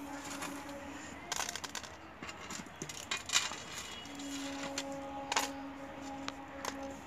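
Metal pots and utensils clinking and knocking in a few sharp clatters, over a steady low hum that drops out a little over a second in and comes back about four seconds in.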